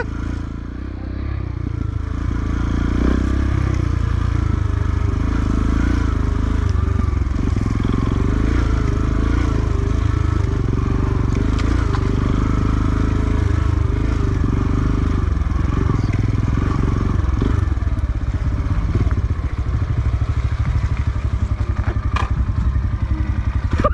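Motorcycle engine running at low revs with a slightly wavering pitch while riding a rough trail, with a couple of sharp knocks near the end.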